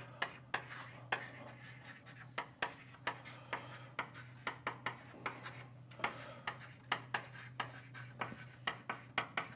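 Handwriting equations out on a writing surface: quick taps and short scratching strokes, a few each second and irregular, over a steady low hum.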